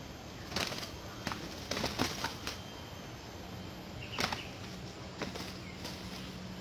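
Two red junglefowl roosters fighting: short bursts of wing flapping and scuffling as they leap at each other, in a cluster around one to two and a half seconds in and again just after four seconds, with a few smaller flurries after that.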